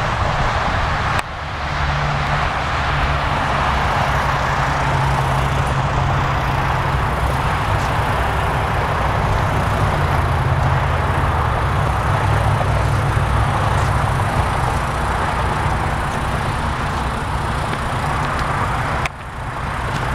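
Strong wind buffeting the microphone, mixed with the rush and flutter of many cloth flags whipping on their poles. It is a loud, steady rumble and hiss that drops out briefly about a second in and again near the end.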